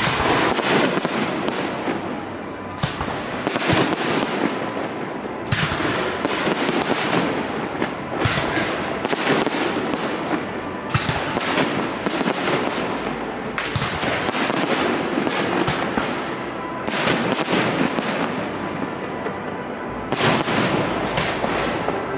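Aerial fireworks display: repeated volleys of rapid bangs and crackling, coming in clusters a second or two long with short lulls between them.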